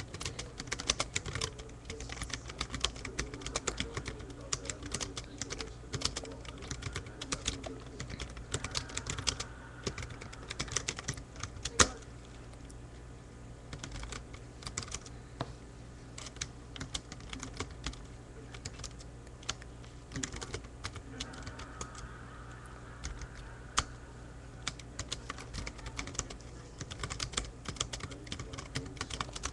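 Typing on a computer keyboard: quick runs of key clicks, thinning out for a few seconds past the middle, with one much louder keystroke about twelve seconds in.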